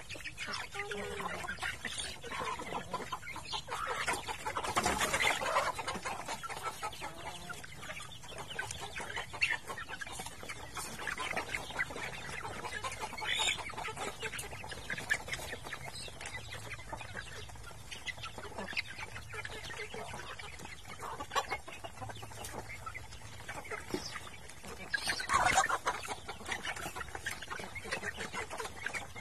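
A flock of chickens and chicks clucking and cheeping as they feed, over a patter of small clicks. There are louder bursts of calling about five seconds in and near the end.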